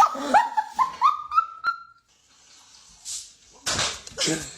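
A dog giving a run of about six short, high yips, each a step higher in pitch than the last. Two short breathy noisy bursts follow near the end.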